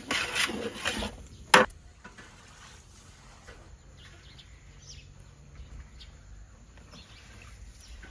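A metal ladle scraping around a large aluminium cooking pot in a few quick strokes, ending in one sharp clank about a second and a half in. Then only faint outdoor ambience with small soft ticks.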